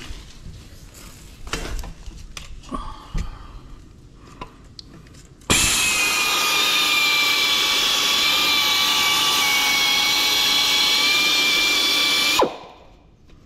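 A few light clicks and knocks as a small wire brush on a drill is set into the cylinder bore. About five and a half seconds in, the drill starts and spins the brush steadily, a high whine with the bristles scrubbing dirt and old O-ring rubber out of the liner seal groove in the block. It stops abruptly about seven seconds later.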